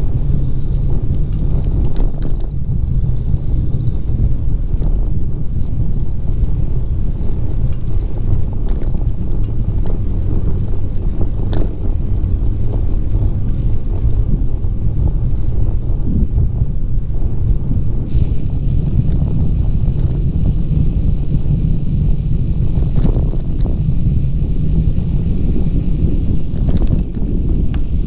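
Wind rushing over the microphone of a camera on a moving bicycle: a steady, loud low rumble. About eighteen seconds in, faint steady high-pitched tones join it.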